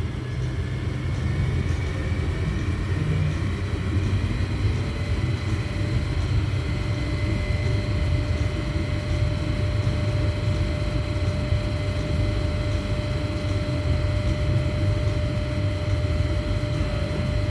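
Apheresis machine (blood cell separator) running during stem cell collection: a steady low hum and drone, with a thin steady whine that comes in about four seconds in.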